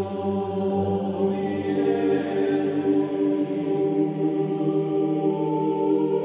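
Background music: slow, long-held chords that stay steady, with a new higher note coming in about five seconds in.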